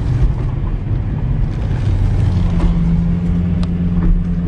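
Lexus LFA's V10 engine heard from inside the cabin, running at low speed as the car rolls slowly, with a steady low drone setting in about halfway through.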